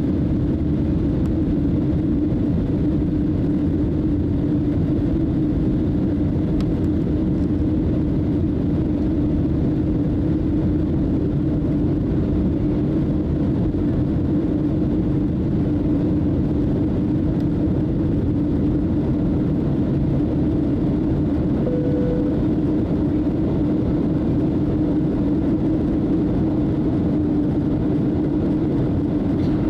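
Steady cabin drone of a Boeing 737-800 in cruise, heard from a window seat beside the wing: the rush of airflow and the CFM56 turbofans merge into an even low rumble with a steady hum.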